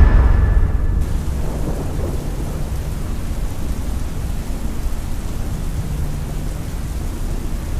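Thunderstorm: a loud thunder rumble dying away over the first second or so, then a steady low rumble under the even hiss of rain.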